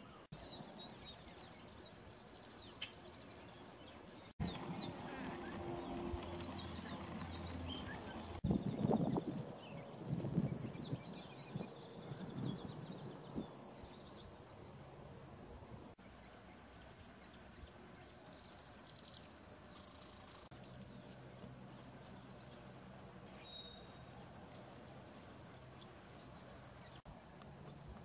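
Small songbirds chirping and twittering in a busy run of quick high calls, thinning out to scattered calls about halfway through.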